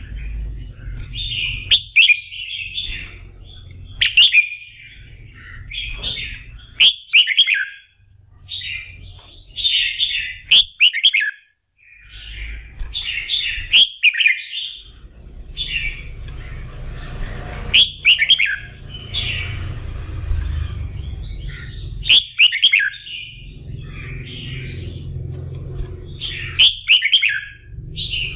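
Red-whiskered bulbul singing a run of short, bright chirping phrases with sharp high notes and brief pauses, the kind of full-voiced song keepers play to fire up competition birds. A low rumble of background noise lies under it, heaviest about halfway through.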